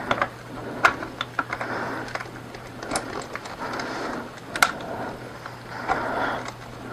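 Handling noise as a plastic wireless flash trigger receiver is fitted and snugged down inside a softbox: scattered sharp plastic clicks and knocks over rustling, with a steady low hum underneath.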